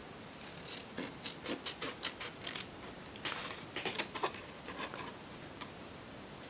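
Scissors snipping short cuts into folded white cardstock: faint, irregular snips and blade clicks.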